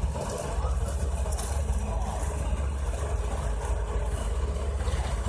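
Ponsse Buffalo forwarder's diesel engine running steadily as its hydraulic crane swings and works the grapple on a log.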